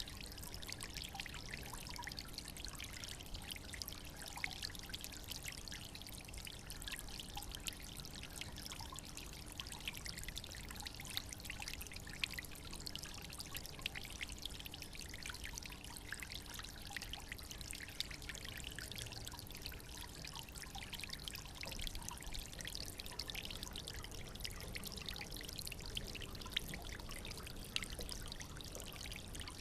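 A small stream trickling and babbling over stones, a steady splashing with many small droplet sounds and no change throughout.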